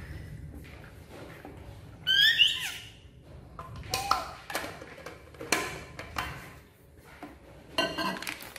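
A baby monkey gives a short, high squealing call of quick rising and falling squeaks about two seconds in. Several light knocks and taps follow.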